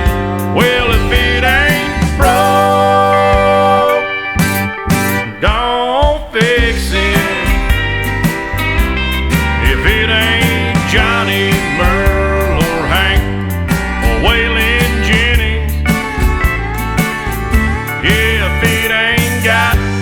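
Country song playing as background music: an instrumental stretch with guitars and a steady drumbeat.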